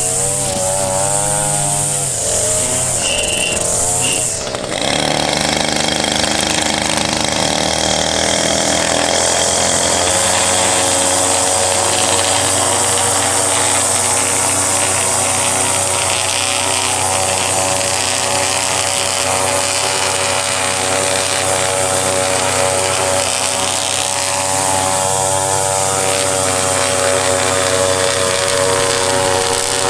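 Small petrol engine of outdoor power equipment running. Its speed rises and falls for the first few seconds, dips briefly, then holds steady at high speed.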